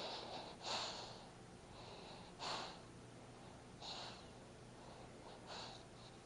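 Sleeping baby snoring faintly: short, snuffly breaths about every one and a half seconds.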